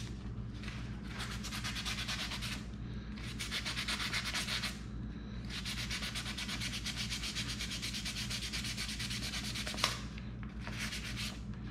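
A cast silver coin being rubbed with a fine abrasive pad and 1000-grit sandpaper in quick back-and-forth strokes, with two short pauses, to bring up luster on the high points of its darkened, antiqued surface. A steady low hum runs underneath.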